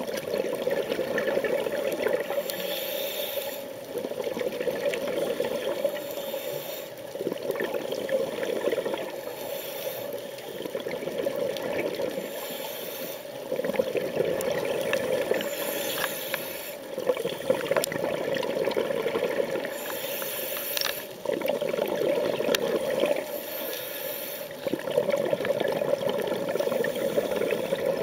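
Scuba diver breathing through a regulator underwater, heard through the camera housing: a brief high hiss on each inhalation, then a longer rush of exhaled bubbles, repeating every few seconds.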